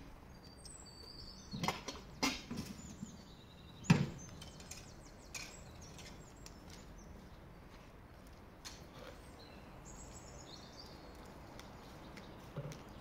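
A few sharp knocks or clinks, three close together with the loudest about four seconds in, with short high chirps near the start and again later.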